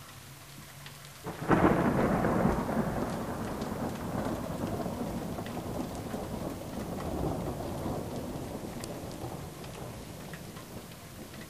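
A thunderclap: a sudden loud crack about a second and a half in, then a long rolling rumble that slowly fades away.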